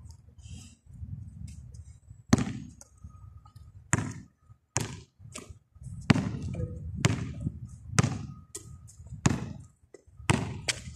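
Basketball bouncing on a concrete court: about ten loud single bounces, roughly a second apart, as a player dribbles.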